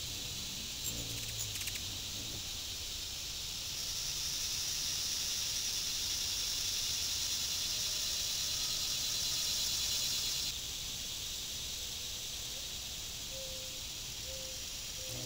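Steady high-pitched chorus of summer insects, which swells about four seconds in and drops back suddenly about ten seconds in, over a faint low hum.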